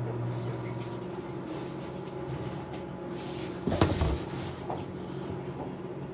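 Microwave oven running with a steady electrical hum, with one short knock or clatter about four seconds in.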